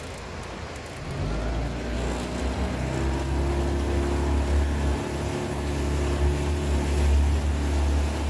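A 15 hp Mercury outboard motor opens up about a second in and runs steadily at high throttle, pushing a small aluminum boat along, with wind and rushing water mixed in.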